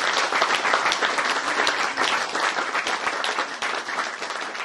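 Audience applause, a dense spread of many hands clapping, beginning to die down near the end.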